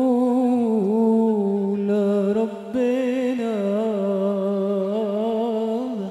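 A man singing solo through a microphone in Arabic sholawat style: long held notes bent with melismatic ornaments. A brief breath breaks the line about two and a half seconds in.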